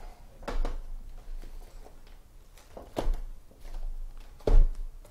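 Sealed cardboard trading-card hobby boxes being handled and set down onto a stack: a few dull thuds, about half a second in, three seconds in, and the loudest near the end, with light handling rustle between.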